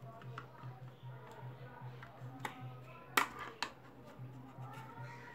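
A few sharp plastic clicks as a small screwdriver pries at the D-Link DIR-600 router's plastic case, the latches giving as the case is forced open; the loudest click comes a little over three seconds in. A steady low hum and faint background music run underneath.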